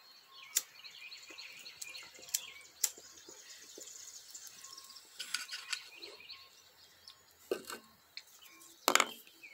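Birds chirping in the background, with a few sharp clicks and short breathy rushes; the loudest is a breathy burst about nine seconds in.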